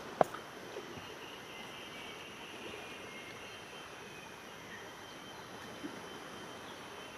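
Steady outdoor background noise with a faint, high, steady insect drone that sets in about a second in. There is one sharp click right at the start.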